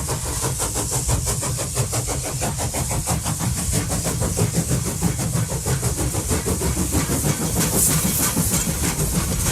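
Model train running on its track: a steady, rapid, even clatter with a low rumble and hiss.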